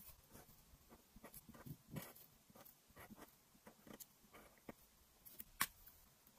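Faint scratching of a felt-tip marker nib stroking across paper, in short separate strokes, with one sharp click about five and a half seconds in.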